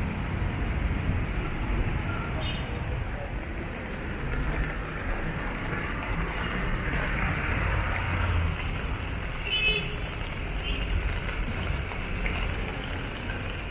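Street traffic at a road intersection: a steady rumble of passing cars and engines, with a brief high beep about two-thirds of the way through.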